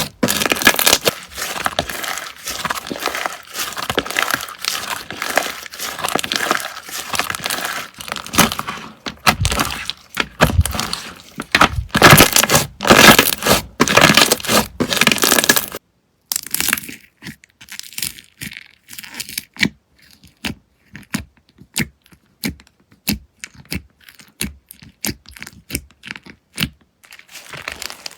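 Slime being squeezed and kneaded by hand, with dense crackling for about the first half. After a brief break it gives way to separate sharp clicks and pops, a few a second.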